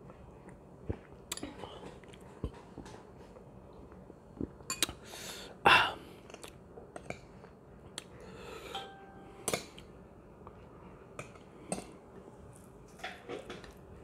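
Close-up eating sounds: chewing chicken biryani, with scattered light clinks and taps of a spoon on a plate. One louder, noisy mouth sound stands out about six seconds in.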